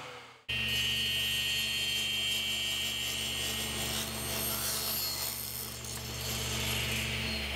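Table saw running with its blade cutting along the edge of a hardwood panel fed upright against the fence, bevelling a raised panel; a steady motor hum and blade whine over the cutting noise, starting abruptly about half a second in.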